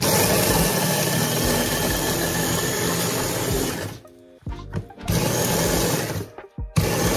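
Small electric food chopper running in pulses, grinding cookies into crumbs: one run of about four seconds, a short pause, then two shorter bursts.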